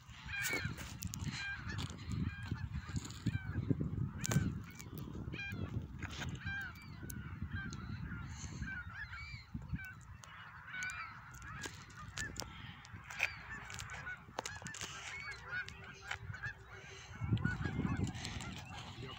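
A large flock of Canada geese honking continuously, many calls overlapping one another, with a low rumble beneath, heaviest in the first half and again near the end.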